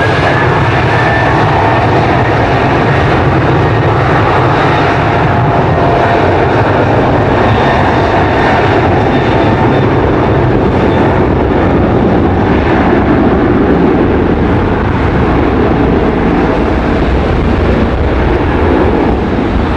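Boeing 737's CFM56 turbofan engines at takeoff power on a wet runway: a loud, steady jet noise with whining fan tones that fade as the aircraft accelerates away.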